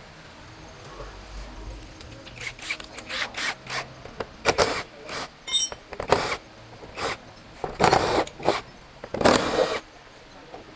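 A power tool run in a dozen or more short, irregular bursts starting about two seconds in, with the longest bursts near the end.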